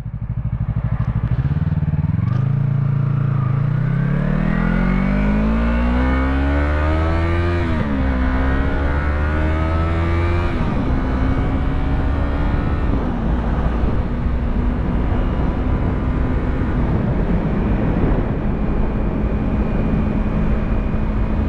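Yamaha YZF-R3's parallel-twin engine accelerating through the gears. The revs climb for several seconds, fall at an upshift about eight seconds in, climb again and fall at a second upshift near eleven seconds, then hold a steady cruising pitch over a constant rush of wind.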